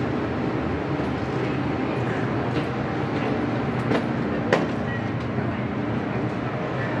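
MTR M-train electric multiple unit running at speed, heard from inside the car by a door: a steady loud rush of wind and running noise. Two sharp clicks come about four and four and a half seconds in, the second the louder.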